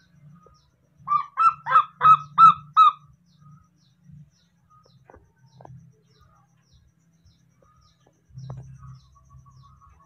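Newborn baby monkey giving a quick run of about six short, duck-like honking calls, each dropping in pitch, about a second in.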